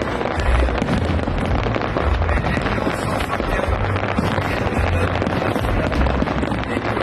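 Aerial fireworks display going off continuously, a dense crackle of many overlapping bursts with repeated low booms.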